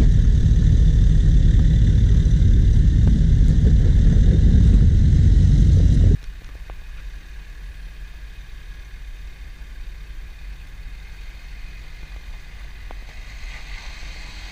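LDV T60 MAX ute's engine running as it crawls over a washed-out offroad obstacle: a loud low rumble that cuts off suddenly about six seconds in, then a much quieter engine sound that builds near the end as the ute climbs out of the rut.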